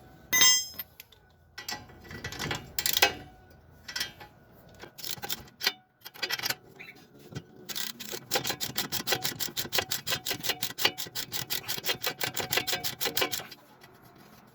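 A few metal clinks of a wrench on a nut, then a ratcheting wrench clicking fast and evenly, about nine clicks a second for five or six seconds, as the 19 mm tie rod end nut on the steering knuckle is spun loose.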